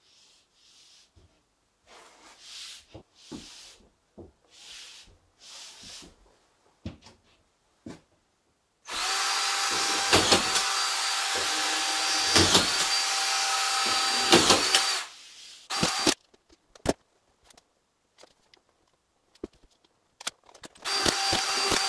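Cordless drill running steadily for about six seconds, driving screws to fix a drywall board to the wooden framing, with three brief dips as it bites; it starts up again near the end. Soft scraping and rubbing of the board come before it.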